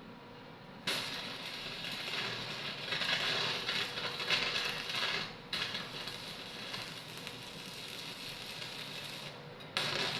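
Electric arc welding: the arc is struck about a second in and crackles and sizzles steadily. It drops out for a moment midway, breaks off near the end and is struck again.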